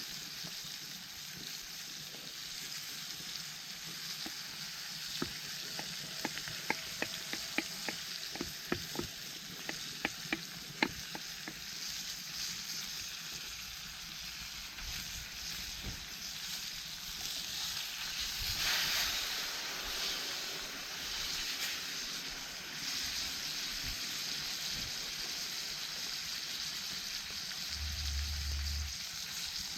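Food frying and sizzling in a pan over a campfire, with a run of sharp clicks in the first third and a louder surge of sizzling near the middle.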